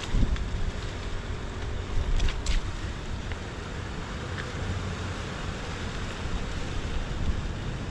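Wind buffeting the microphone outdoors, a steady rumbling rush that rises and falls, with a couple of faint clicks about two seconds in.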